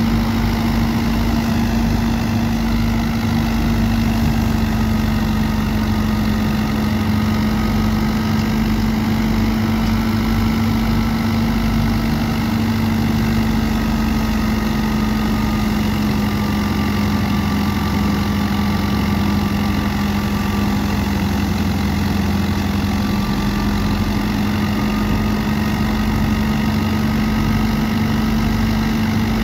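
Tractor-powered wheat thresher running steadily: the tractor's engine and the thresher's spinning drum make a continuous drone with a strong steady hum.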